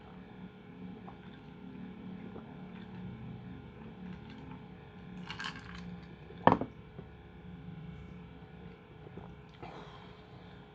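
Drinking from a clear plastic cup, then the cup set down with one sharp knock about six and a half seconds in, over a steady low hum.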